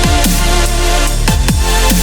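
Electronic dance music with a heavy beat: deep drum hits that drop in pitch, about three every two seconds, over sustained synth tones.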